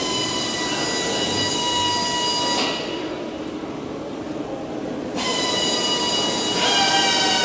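High-pitched whine of a workshop power tool running, cutting off sharply about two and a half seconds in and starting again just after five seconds.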